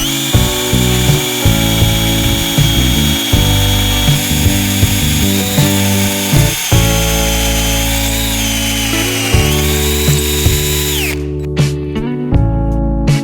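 Small electric power tool running at a steady high whine, grinding to sharpen a chainsaw chain, over background music. Its pitch sags briefly about nine seconds in, then it winds down and stops about eleven seconds in, leaving only the music.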